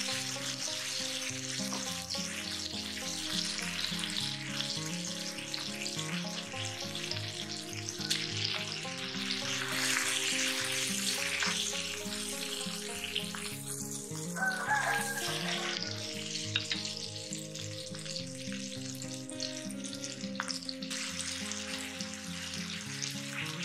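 Marinated chicken breast sizzling steadily in hot oil in a ridged grill pan, with background music underneath.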